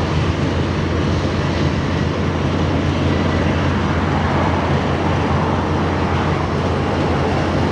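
Freight train running through the rail yard: a steady, unbroken low rumble.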